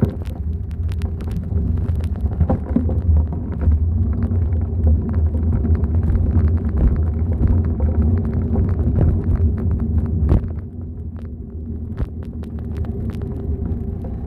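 Bicycle tyres rumbling over brick block paving, with frequent sharp clicks and rattles from the bike and the handheld phone. The rumble drops noticeably about ten seconds in.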